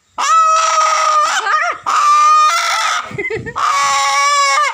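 Rooster calling loudly, held close to the microphone: three long, steady calls in a row, each about a second long, holding one pitch and dipping at the end.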